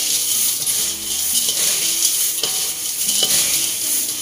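Cornflakes, peanuts and fried anchovies being tossed and stir-fried in a metal wok with two wooden spatulas: a continuous dry, crackling rustle of the flakes that swells with each stroke, with spatulas scraping the pan.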